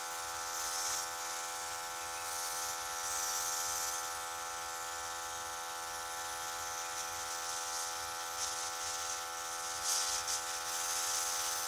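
Small airbrush compressor running with a steady electric hum, while the airbrush sprays with a hiss that swells twice.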